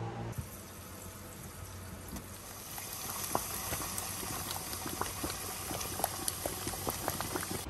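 Thick, dark fruit mixture simmering in a pot, with bubbles popping and plopping at its surface. The pops come more often from about three seconds in.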